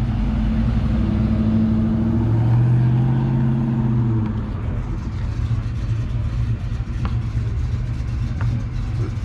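Dodge Charger's engine pulling away, loud for about four seconds with a shift in pitch about two seconds in, then fading into a lower steady engine rumble.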